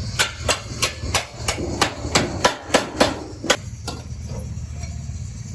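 A hammer striking repeatedly, about a dozen sharp blows at roughly three a second, stopping about four seconds in, over a steady low rumble.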